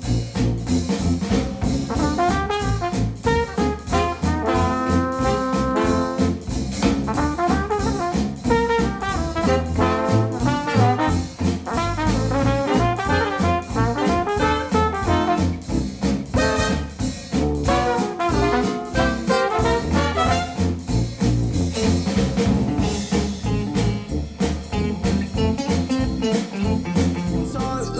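Instrumental music with a steady beat played back through Wharfedale Denton 80th bookshelf speakers driven by a Cambridge AXA35 integrated amplifier.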